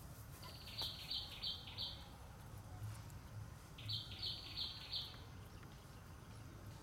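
A bird calling twice: each phrase is a quick series of four or five short, high notes, about three a second, lasting just over a second.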